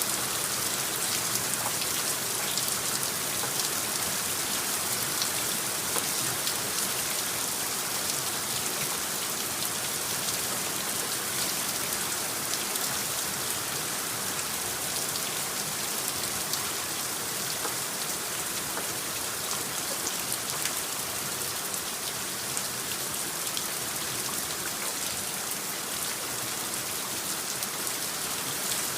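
Steady rain: a dense, even hiss with the patter of single drops.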